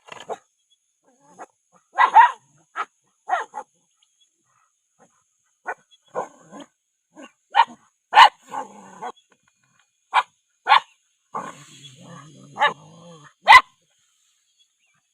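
Puppies barking in short, separate yaps while playing, about a dozen spread across the stretch, some in quick pairs. There is a longer, lower rumbling stretch near the end.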